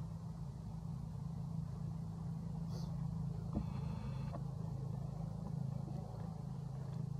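A steady low hum of a running motor, with a single faint click about three and a half seconds in.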